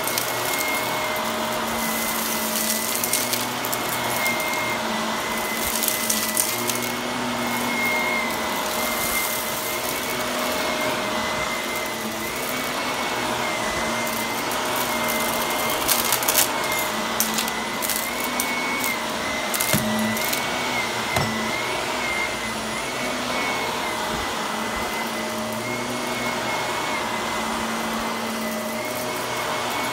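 Shark Navigator upright vacuum running on carpet, its motor whine rising slightly in pitch every couple of seconds as it is pushed back and forth. Scattered crackles of debris crunching as it is sucked up, with a cluster about halfway through.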